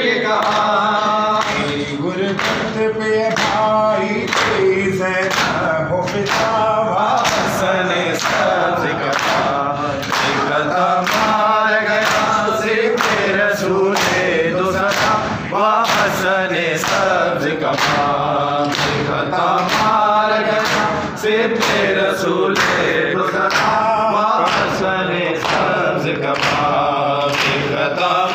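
Men's voices chanting a noha, a Shia lament, in unison, over a steady rhythm of hands slapping on chests (matam).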